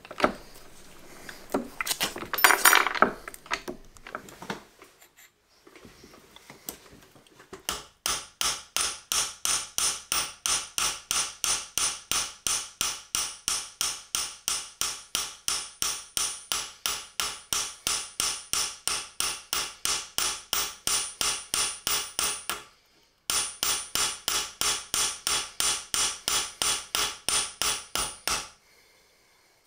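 A small hammer striking an 18ct gold ring strip laid on a steel anvil, in quick, even blows of about three a second, shaping and texturing the band. The blows stop briefly about two-thirds of the way through, then resume. Some irregular handling noise comes before them.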